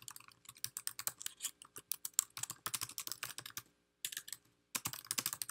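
Rapid typing on a computer keyboard, keys clattering in quick runs with two short pauses in the last two seconds.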